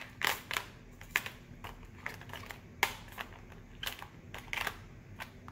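Small plastic containers of diamond-painting drills clicking and clacking against each other and the compartmented plastic storage box as they are set in and moved about by hand, in a string of irregular sharp clicks.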